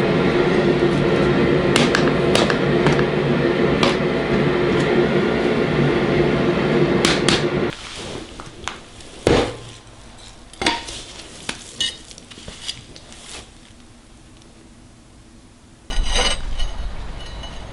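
Metalworking shop sounds: a steady loud running noise with a low hum cuts off abruptly about eight seconds in, then scattered metal clinks and knocks of steel and tools being handled, and another loud rumbling noise starts near the end.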